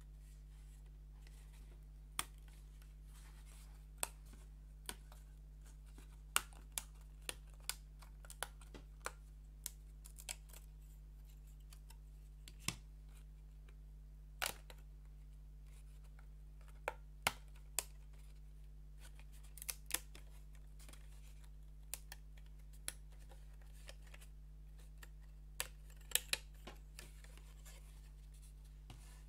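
Irregular sharp clicks and light taps of thin wooden puzzle pieces being handled and fitted together, some single and some in quick clusters.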